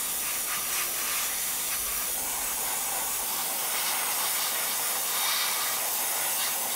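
Gravity-feed airbrush spraying black primer onto a plastic model part: a steady hiss of compressed air and atomised paint from the nozzle.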